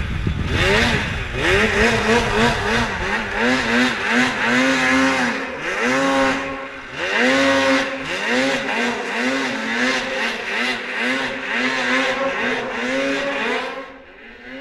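Mountain snowmobile engine revving hard and repeatedly, its pitch rising and falling over and over as the throttle is worked across a steep slope. It fades near the end as the sled moves away.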